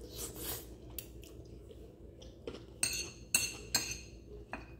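Metal fork clinking and scraping on a ceramic plate, with about four sharp clinks in the second half. Soft eating sounds from a mouthful of spaghetti come first.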